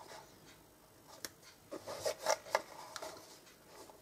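Paper and cardstock being handled and rubbed: a light tap a little after a second in, then a cluster of rustles and taps around the middle.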